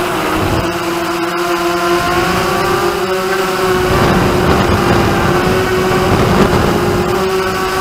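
The six DYS1803 brushless motors of a hexacopter, spinning 5040 propellers, whine steadily in flight as heard from the drone's onboard camera. Their pitch drifts slightly with throttle. A rushing noise swells in the middle for a few seconds.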